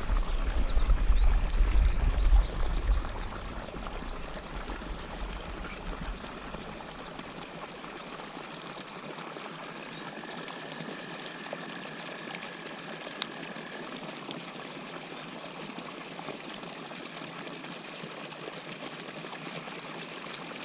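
Water pouring steadily into a pond from a pumped inflow, an even rushing splash. A low rumble sits under it for the first three seconds, and a faint steady high tone comes in for a few seconds midway.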